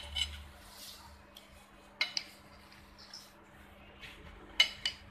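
A metal knife clinking and scraping against a porcelain plate as a caramel pudding is cut into pieces: a few short, sharp clinks, two close together about two seconds in and the loudest pair near the end.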